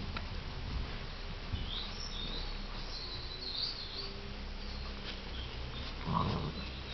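Playing bulldog puppies with a short puppy vocalization about six seconds in, the loudest sound here. Birds chirp faintly in the background during the first half.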